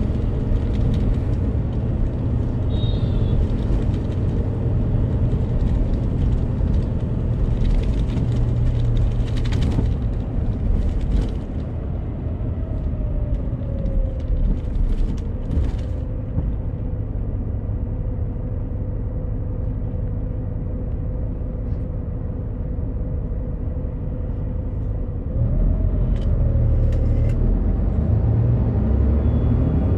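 Inside a Daewoo FX116 coach under way: its rear-mounted Doosan DL08S turbocharged inline-six diesel and the tyres on a wet road make a steady low rumble. It goes a little quieter about 12 seconds in and louder again about 25 seconds in, with a faint tone gliding up near the end.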